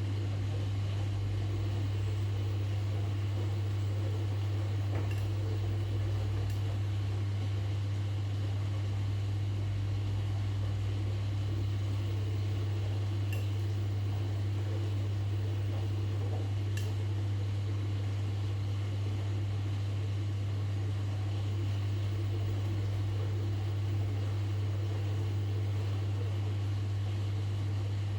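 Washing machine running with a steady low hum and an even whirr over it, and a few faint ticks now and then.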